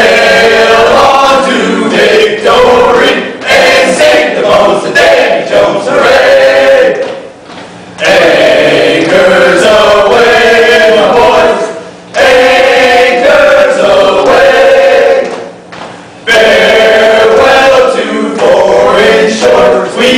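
A choir singing in phrases a few seconds long, with short breaks between them.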